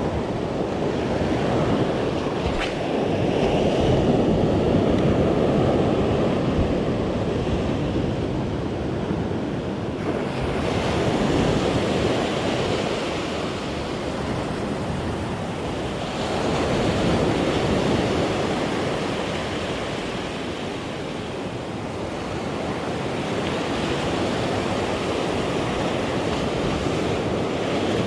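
Sea waves breaking and washing on a rocky shore, the surf swelling and falling back about every six seconds, with wind buffeting the microphone.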